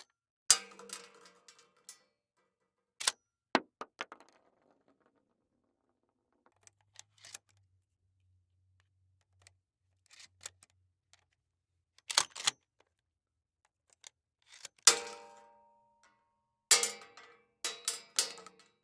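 A series of separate short metallic clicks and clanks, weapon-handling sound effects, with a second or more of quiet between most of them; a clank about fifteen seconds in rings on briefly, and several come in quick succession near the end.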